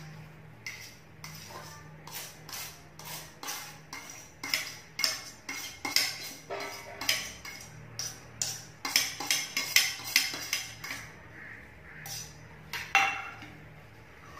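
A metal spoon scraping and clinking against stainless steel plates as mashed boiled potato is scraped from one plate onto another. The clinks come in a quick irregular run of about two a second, with a louder clank near the end.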